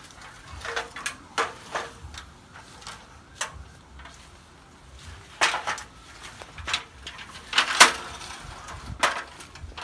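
Rustling of leafy plants with scattered knocks and cracks as a ladder is taken down and laid in the undergrowth. The loudest clatters come about five and a half seconds in and again near eight seconds.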